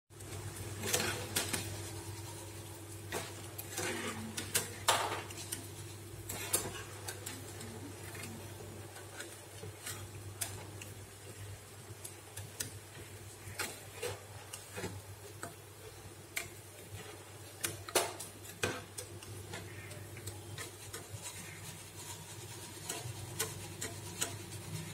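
Rice-flour chakodilu rings sizzling as they deep-fry in oil in a metal kadai, while a wire-mesh skimmer turns and lifts them, clinking and scraping against the pan many times, over a steady low hum.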